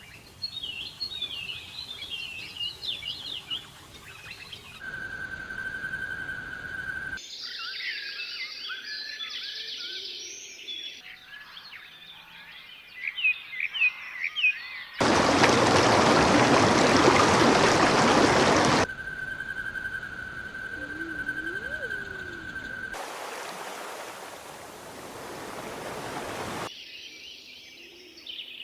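Birds chirping and singing in several abruptly spliced clips, broken by a few seconds of loud, even hiss about halfway through and a fainter hiss later on.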